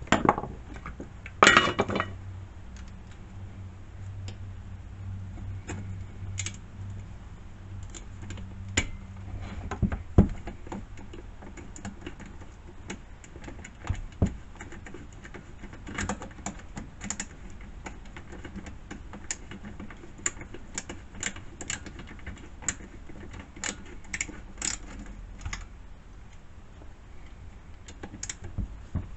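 Small metal hand tools and parts clinking and clicking as the nuts holding a chainsaw muffler are undone. Irregular light clicks throughout, with a louder metallic clatter about a second and a half in and another around ten seconds in.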